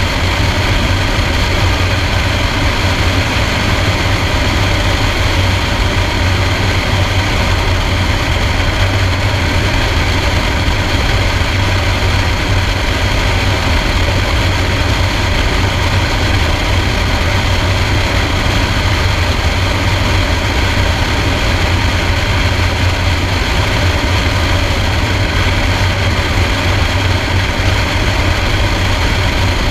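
Piper Cherokee's single piston engine and propeller droning steadily on final approach, heard from an outside-mounted camera with a constant rush of airflow.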